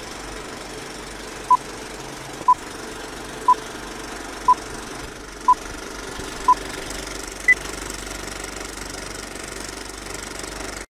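Film countdown leader sound effect: the steady mechanical clatter of an old film projector running, with short beeps once a second, six at one pitch and a seventh higher one. The sound cuts off suddenly near the end.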